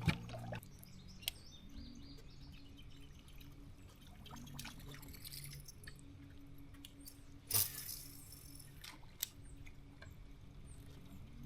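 A faint, steady low hum from a small motor, broken by a few sharp clicks and one short burst of noise about seven and a half seconds in.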